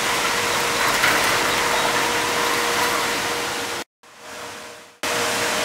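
Steady rushing of wastewater pouring from a drainage pipe into a river, with a faint steady hum under it. The sound drops out abruptly a little under four seconds in and returns about a second later.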